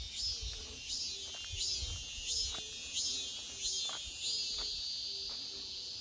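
A cicada singing: a high, repeated phrase of quick falling sweeps about every two-thirds of a second, running into a steady buzz about four seconds in. Soft footsteps thud on the gravel path underneath.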